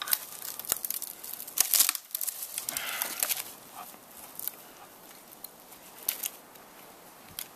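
Dry dead twigs and small branches snapping and cracking as they are broken off by hand, with the rustle and scrape of gathered sticks brushing together; the loudest cracks come just under two seconds in.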